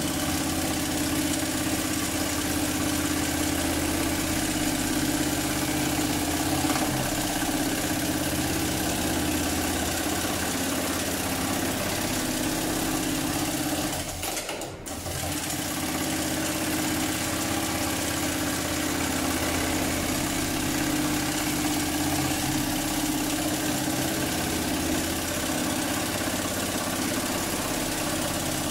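HighTex MLK600-8020 programmable automatic sewing machine stitching a thick, hard leather belt, its needle running at a steady speed with a constant hum. About halfway through it stops briefly, then starts again and runs on steadily.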